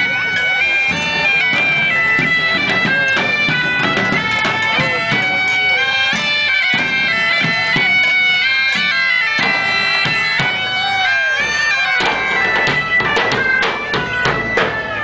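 Bagpipes playing a melody over their steady drone, thinning out near the end.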